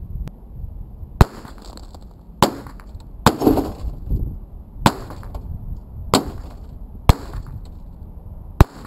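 Seven sharp cracks of rifle shots hitting old CRT television sets, spaced about one to one and a half seconds apart. The third is followed by a short clatter of something breaking.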